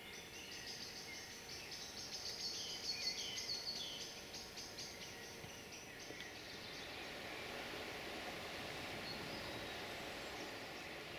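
A small bird singing rapid high chirps and trills, loudest a few seconds in and fading out after about seven seconds, over a steady rushing background noise that grows a little louder in the second half.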